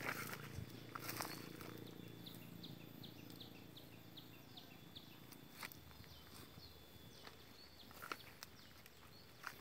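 Footsteps and rustling through garden vegetation, with sharp knocks near the start and a few more later. From about two seconds in, a bird repeats a short high note about three times a second for a few seconds, over a faint steady high tone.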